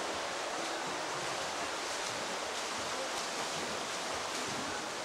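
Steady wash of splashing water from a swimmer's front-crawl strokes in an indoor swimming pool, under an even hiss.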